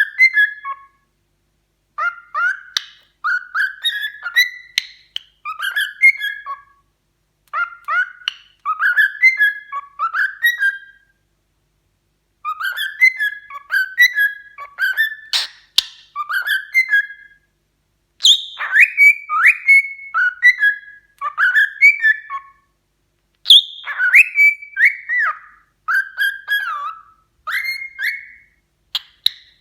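Pet cockatiel whistling its song in phrases of quick rising and falling notes, each phrase a few seconds long, with short pauses between them.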